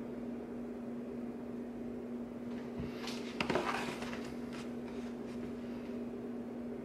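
Leather baseball glove being picked up and handled on a foam pad: a soft knock and leather rustle about three seconds in, with fainter rustling after, over a steady low hum.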